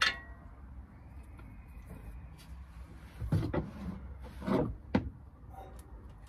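Metal tool handling on a Mk3 Ford Transit's front axle while the kingpins are greased. A sharp metallic clink with a brief ring comes first. Two heavier scraping knocks follow a little over a second apart, then another click.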